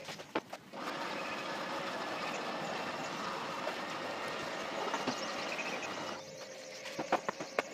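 A steady rushing noise for about five seconds that cuts off abruptly, then a few sharp metal clicks and clanks from pliers working on the rotisserie spit near the end.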